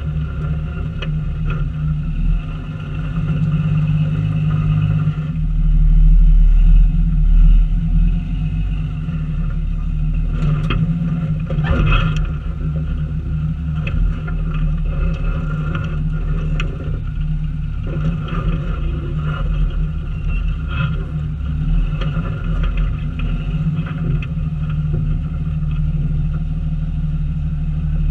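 Off-road vehicle's engine running steadily at a low rock-crawling speed, with scattered knocks and crunches as the tyres climb over rock ledges.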